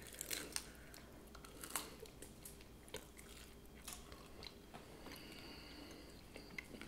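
Two people biting into and chewing pizza rolls dipped in sour cream, faint scattered crunches. The pizza rolls are hard, possibly from being microwaved a little too long.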